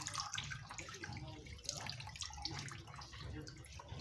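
Water streaming and dripping into a plastic basin of water as a lump of raw beef tripe is squeezed out by hand while being washed, with irregular small splashes throughout.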